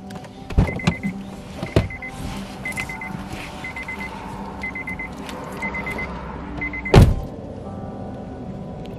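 Car's door-open/key-in-ignition warning chime, a quick high beeping repeated about once a second while the driver's door stands open, with clicks of the door latch near the start. About seven seconds in the car door shuts with a loud thud and the chiming stops.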